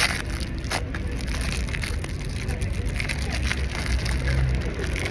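Plastic packaging crinkling and rustling in irregular crackles while it is handled and opened, over a steady low rumble.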